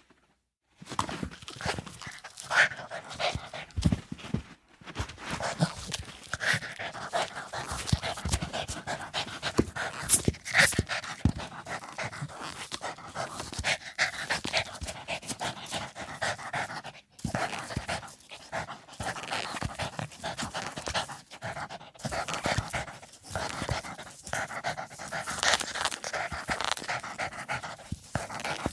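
A dog panting rapidly and continuously, with a couple of brief breaks.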